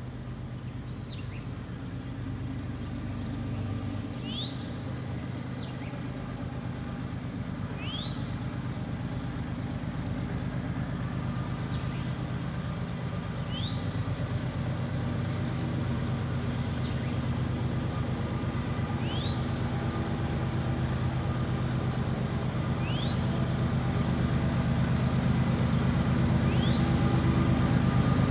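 Diesel locomotive engines approaching, a steady low hum growing steadily louder. A bird repeats short rising chirps about every two seconds over it.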